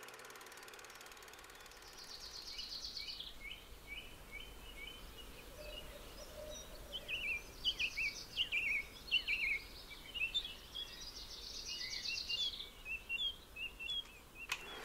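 Small songbirds singing: runs of quick chirps and short downward-sweeping notes, with a dry, high trill about two seconds in and again around ten seconds in, over faint outdoor background hiss.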